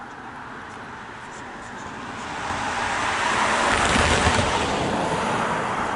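A car driving past: tyre and engine noise swells to a peak about four seconds in, then eases off slowly.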